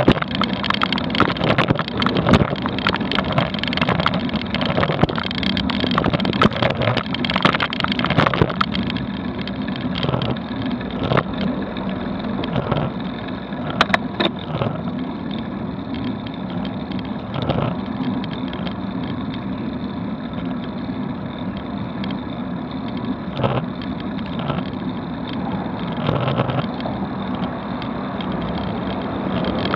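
Riding noise picked up by an action camera on a slowly climbing bicycle. A steady low rumble runs under frequent rattling knocks of the mount over roughly the first nine seconds. It is then smoother, with a sharp click about fourteen seconds in and an occasional knock after.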